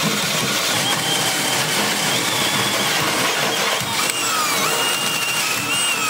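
Cordless drill boring a 3/4-inch bit through the steel plate of a Kubota loader bucket, running steadily under load. From about four seconds in a thin, wavering squeal from the bit cutting the steel joins the grinding.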